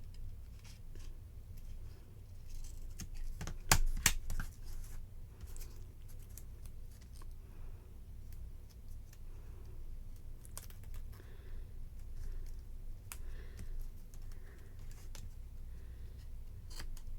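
Small crafting scissors snipping, mixed with paper and double-sided tape being handled: a scattered series of light clicks and scratches, with two sharp clicks about four seconds in.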